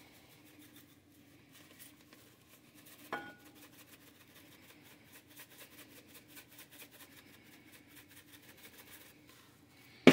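Faint ticking patter of dried Italian seasoning being shaken from a shaker jar into a bowl of flour, with a single knock about three seconds in and a sharp knock at the very end. A faint steady hum runs underneath.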